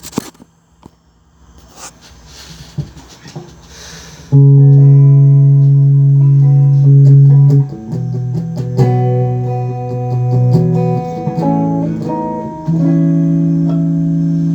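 Instrumental music: a few faint knocks, then about four seconds in loud sustained chords start suddenly and are held, with a change of chord and quicker notes over them partway through.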